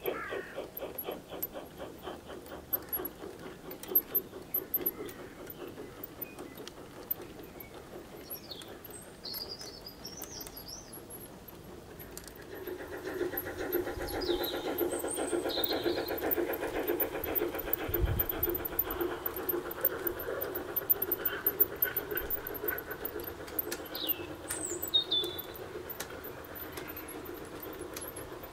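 A G-scale model train running on garden-railway track, presumably hauled by a model of the HSB Harzbulle 99 236. A fast, even clatter of the train running on the track fades away in the first few seconds. From about twelve seconds in, the train's running sound grows louder as it approaches and stays up to the end. Birds chirp a few times.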